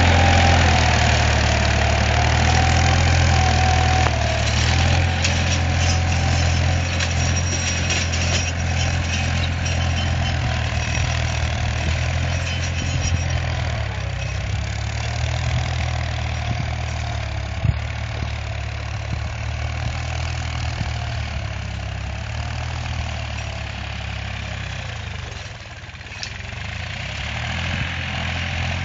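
Massey Ferguson 245 DI tractor's diesel engine running steadily under load while pulling a tined cultivator, fading as the tractor moves away. A single sharp click comes a little past the middle.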